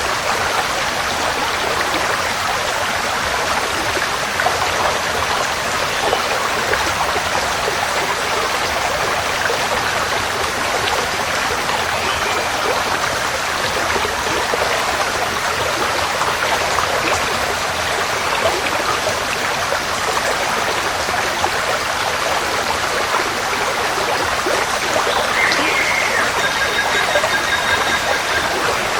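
Forest stream flowing, a steady even rush of water. A bird calls briefly near the end.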